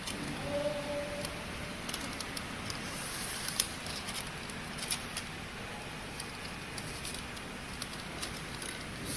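Scattered light clicks and rustling from hands feeding the label web through the rollers of a flat-surface labeling machine, over a steady hiss.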